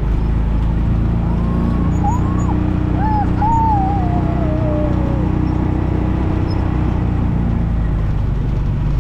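Kawasaki Mule 3010's carbureted V-twin engine running at a steady speed under way, freshly tuned with its carburetor cleaned and idle adjusted, with wind noise in the open cab. A few short high calls ride over it between about one and a half and five seconds in, the last one drawn out and falling.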